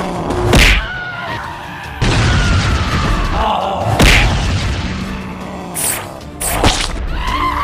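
Background music with sound-effect booms: several sudden heavy hits, the loudest about half a second in and four seconds in, two more close together near the end, and a slowly falling tone between them.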